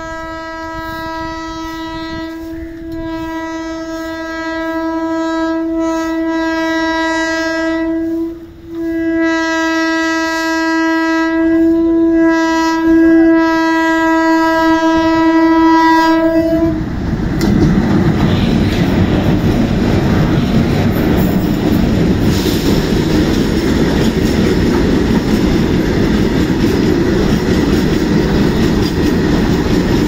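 Horn of an Indian Railways WAG-5 electric freight locomotive, sounded as two long blasts of about eight seconds each with a short break between. The horn stops at about 17 seconds and is followed by the steady, loud noise of the locomotive and its long train of BOXN open freight wagons running past close by.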